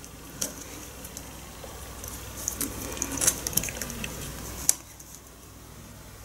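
Handling noise from a bicycle GPS mount being fitted to the handlebar by hand: scattered small clicks and rubbing, busiest in the middle, with one sharp click about four and a half seconds in.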